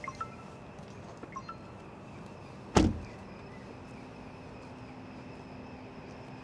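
A car door shutting with one heavy thud about three seconds in, after two short pairs of electronic chime beeps, over a steady low hum.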